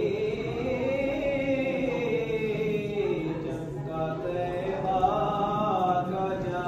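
A voice chanting in long, drawn-out melodic phrases, its pitch slowly rising and falling: a devotional recitation.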